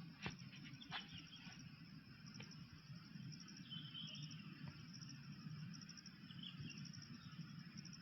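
Faint outdoor ambience of insects chirping in short repeated pulse trains, with a few brief bird chirps and a couple of light clicks near the start.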